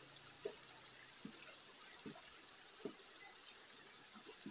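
Steady high-pitched buzz of insects, with faint splashes of water around a man wading in a shallow stream.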